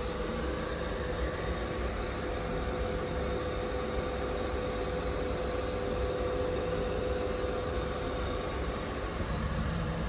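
Passenger lift travelling in its shaft: a steady low rumble with a humming tone that fades out near the end.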